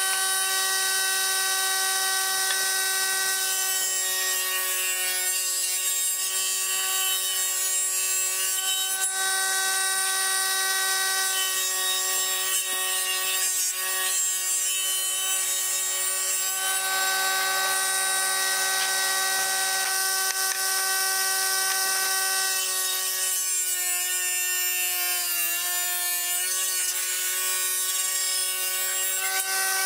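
Table saw running and ripping a softwood board along the fence: a steady whine from the blade with a hiss of cutting wood. The whine sags briefly near the end, as the blade slows under the cut.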